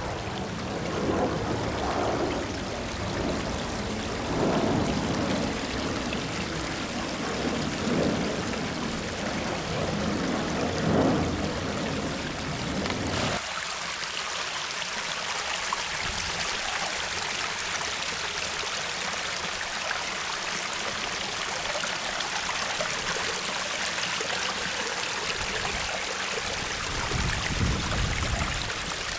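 Pumped water running down a newly built garden cascade, trickling and splashing over sandstone and cobbles into a small pool. For the first dozen or so seconds it has a deeper, uneven churn. Then it changes abruptly to a steadier, higher trickle.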